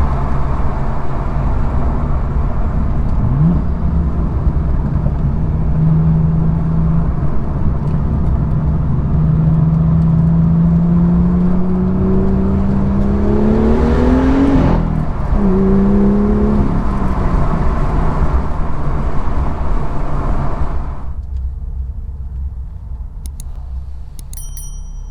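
BMW M2's N55 turbocharged straight-six with M Performance exhaust, running under way. It pulls through a gear with the revs climbing for several seconds, gives a short burst of noise at the change about 15 seconds in, and pulls again. About 21 seconds in it drops to a quieter, duller running sound.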